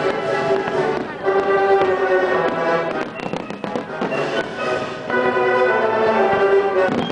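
Orchestral music with sustained strings plays throughout, with fireworks bangs over it, a quick cluster of them about three seconds in.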